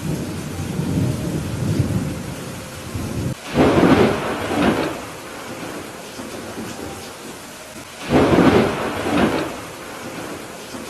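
Steady rain with thunder: a low rumble in the first three seconds, then two sharp thunderclaps about three and a half and eight seconds in, each crackling for a second or so.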